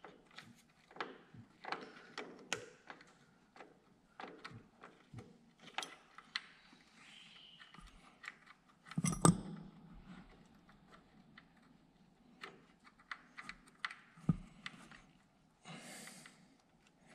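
Small metal clicks, taps and scrapes of a hand tool and fingers working at a Ford 8N tractor's distributor, loosening the nut and screws that hold the breaker points. There is one louder knock about nine seconds in.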